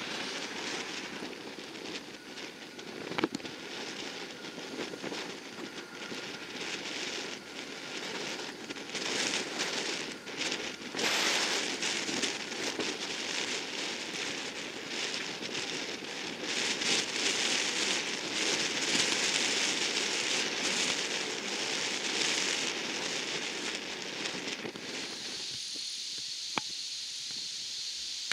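Four-engined Boeing C-135-family jet on its takeoff roll, engines at takeoff power with a crackling jet roar that swells about halfway through. Near the end the sound drops suddenly to a steadier, quieter hiss.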